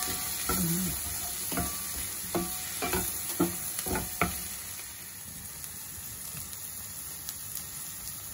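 Wooden spatula stirring king prawns, peas and onion frying in oil in an enamelled pan: a steady sizzle, with a run of short knocks and scrapes of the spatula against the pan over the first four seconds, then the sizzle alone.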